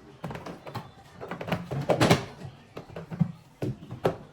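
Irregular knocks, taps and clatters, with a louder knock about halfway through and another at the very end.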